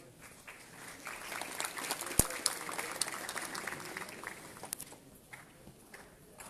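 Audience applauding, swelling about a second in and dying away after a few seconds, with one sharp knock near the peak.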